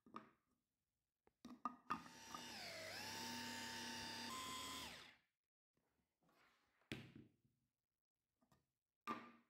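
Food processor motor running for about three seconds while blending frozen strawberries. Its pitch drops shortly after it starts, then holds steady until it cuts off. Short plastic clicks and knocks of the bowl and lid being handled come before and after it.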